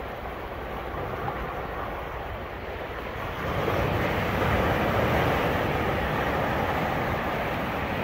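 Ocean surf: waves washing in as a steady rush, swelling louder about halfway through as a wave breaks.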